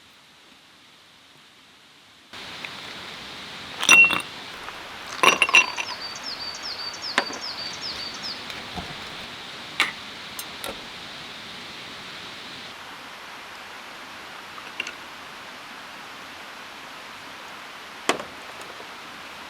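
Sharp clinks and knocks of hard objects handled against each other, like camp cookware or glassware, the loudest about four and five seconds in, then a few scattered ones. A steady hiss of outdoor background begins a couple of seconds in, and a bird gives a quick run of chirps about six seconds in.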